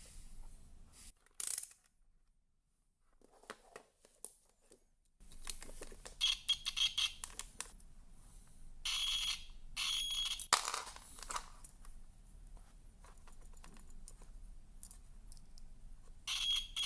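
Test probes and a small bimetal disc thermostat handled with clicks and rustles, while a multimeter's continuity buzzer beeps in several short bursts of about half a second to a second as the probes bridge the thermostat's terminals, a sign that its contacts are closed and conducting.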